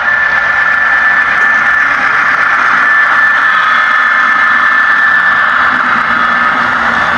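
HO-scale model freight train rolling past close by, its metal wheels running on the rails in a steady rushing clatter with a thin high whine over it.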